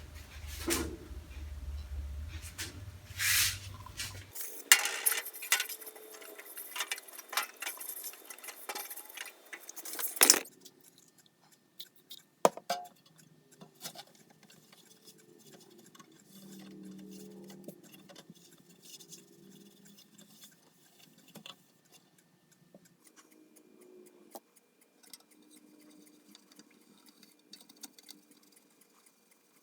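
Light clinks, knocks and rattles of small metal objects being handled on a hard surface, busy for about the first ten seconds and ending in a sharper knock, then only sparse faint ticks.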